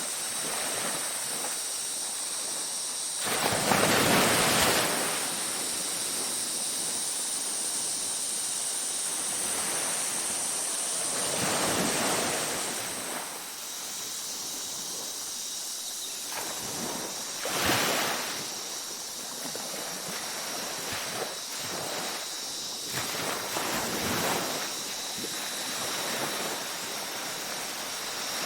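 Ocean waves breaking and washing up the shore in repeated surges, the loudest a few seconds in and a sharper crash a little past halfway. Under the surf runs a steady high-pitched chorus of night insects, part of which stops about halfway.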